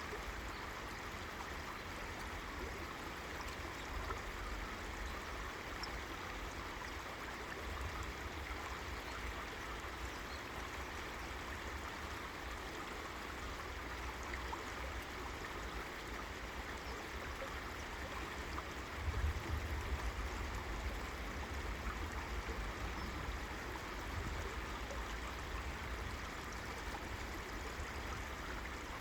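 River water flowing, a steady even rush of water. About two-thirds of the way through, a brief low rumble swells under it.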